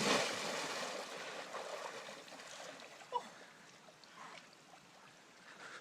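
Lake water sloshing and trickling as it settles after a person's plunge, fading away steadily, with one short knock about three seconds in.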